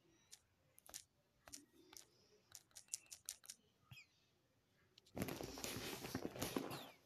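Light clicks of taps on a phone's touchscreen keyboard as a short message is typed, a dozen or so spaced irregularly. About five seconds in, a louder scraping, rustling noise for about two seconds.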